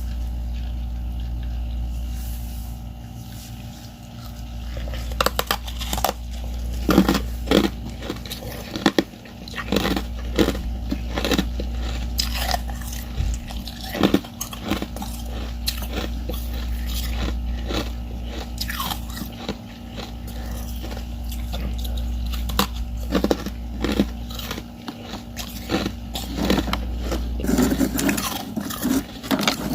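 Frost-covered crushed ice chips bitten and chewed close to the microphone: sharp, irregular crunches come in quick succession from about five seconds in, over a steady low hum.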